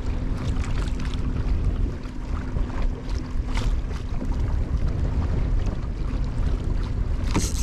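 Strong wind buffeting the microphone, with water splashing and slapping against a moving kayak's hull in choppy water. A faint steady hum under it fades out about two-thirds of the way through.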